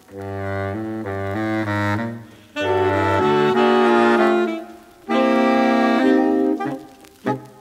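Saxophone quartet (soprano, alto, tenor and baritone) playing a comic silent-film score: three phrases of chords and moving lines with short breaks between them, low baritone notes under the first half, and short detached notes near the end.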